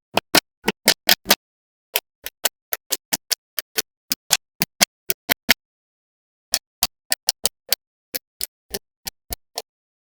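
Small magnetic balls snapping together one by one, about thirty sharp clicks in uneven runs, with a pause of about a second just past the middle.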